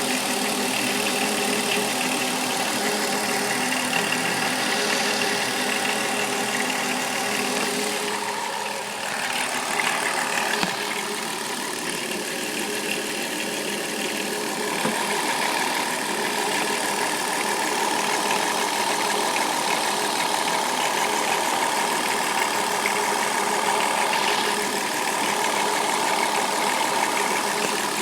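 Chrysler Town and Country's 3.3-litre V6 engine running steadily at idle with a rattling noise, the sound changing briefly about nine seconds in.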